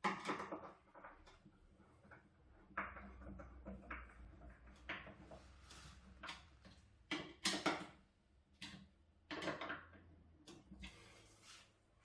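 Irregular knocks, clicks and short scrapes of parts being handled and fitted together during assembly of a workshop-built rack, the sharpest knocks about seven to eight seconds in, with a faint low hum from about three to ten seconds in.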